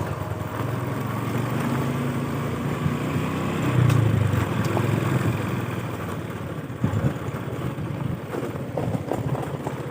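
A vehicle engine running steadily, a little louder about four seconds in, with a brief knock near the end.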